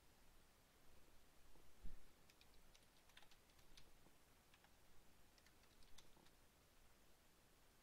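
Faint typing on a computer keyboard: a quick run of keystrokes between about two and six seconds in. Just before them comes a single low thump, the loudest sound here.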